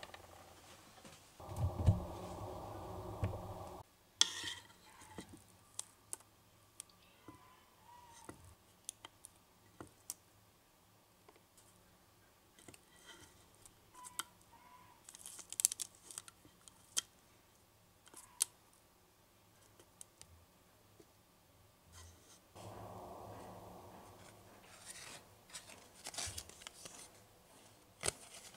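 Small sharp clicks and scrapes of metal tweezers picking up tiny miniature chocolates on parchment paper, with crisp rustles of stiff paper card being handled and folded. A steady hum runs twice, cutting off abruptly the first time.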